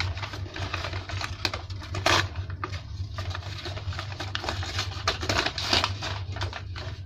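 Gift wrapping and packaging being handled and opened: irregular crackling, rustling and tapping, with a louder crackle about two seconds in, over a steady low hum.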